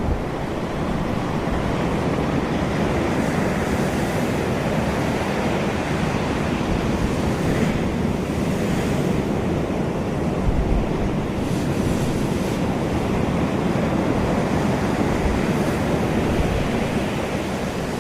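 River water flowing and churning in a steady rush, with wind buffeting the microphone now and then.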